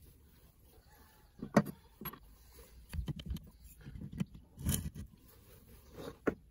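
Rusty metal parts of an old hand drill knocking and clicking as they are handled and set down on a wooden bench: a string of short, separate knocks, the loudest about one and a half seconds in.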